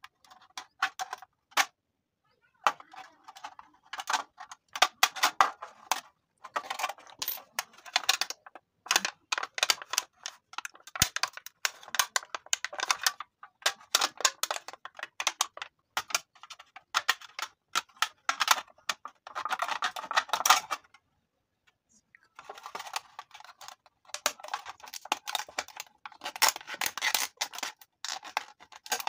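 A steel pin pricking and scraping through the thin aluminium wall of a beer can, giving quick irregular clicks and scratchy ticks, with the can's thin metal crinkling as it is handled. The sounds stop for a second or two a little past two-thirds through, then resume.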